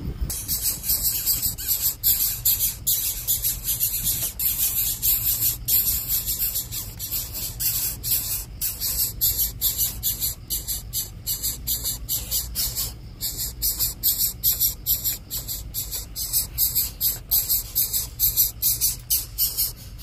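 Rapid, pulsing high-pitched trilling of night insects, loud and steady throughout, over a low hum.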